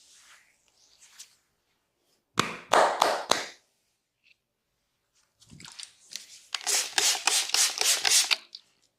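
Barber's hands striking the head in quick rhythmic massage taps: a short run of four or five sharp strikes, then after a pause a longer run of about ten, some five a second.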